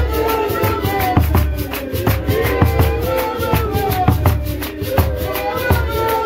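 Rhythmic music with a steady beat: low drum strokes and a fast, even shaker rhythm under a melody of held and gliding notes.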